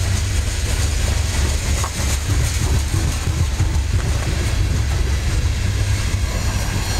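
Coal hopper cars of a freight train rolling past close by: a steady, heavy rumble of steel wheels on the rails, with a few faint clicks.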